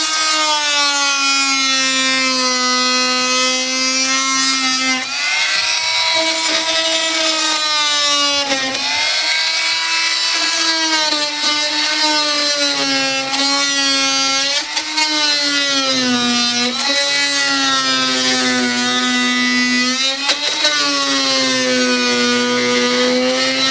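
Oscillating multi-tool with a metal-cutting blade running as it cuts away a reinforcing wood block behind fibreglass. It makes a steady high buzz whose pitch dips and recovers several times as the blade bites.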